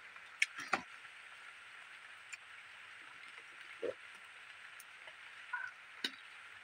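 A few faint gulps and small clicks as a drink is swallowed from a plastic bottle, over a steady low hiss.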